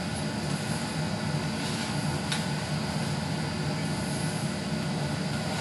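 Steady whooshing hum of a fan motor running, with one faint click a little over two seconds in.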